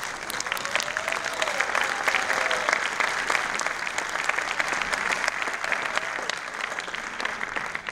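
Audience applauding, many hands clapping together at a steady pace, easing off slightly near the end.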